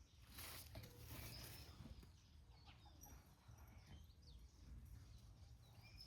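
Faint, short bird chirps scattered through, with a couple of soft rustles in the first second or so and a steady low background rumble.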